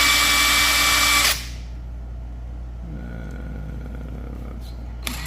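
A cordless 1/2-inch impact drill spinning free at high speed with a steady whine. It stops after about a second and a half, and another drill starts up near the end.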